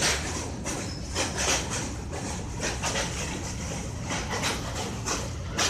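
Train rolling across a steel truss bridge, heard from inside the carriage: a steady rumble under frequent, irregular metallic clattering and knocks.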